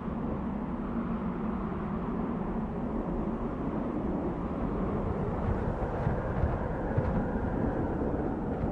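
Desert wind blowing steadily, a low rushing noise with small gusts that grow a little stronger in the second half.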